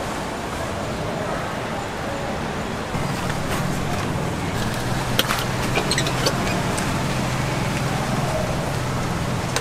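Steady low hum of a running engine, like road traffic, growing louder about three seconds in, with a few sharp clicks around the middle.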